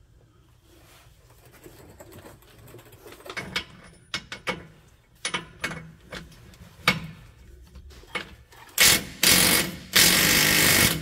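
Clicks and knocks of a socket and cordless impact wrench being fitted onto a nut, then, from about nine seconds in, the impact wrench hammering in three loud bursts on a seized nut that does not break loose.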